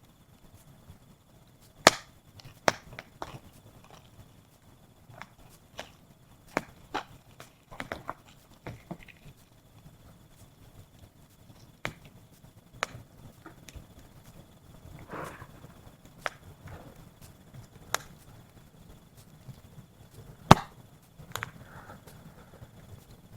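Wood burning in a campfire, crackling and popping with irregular sharp cracks.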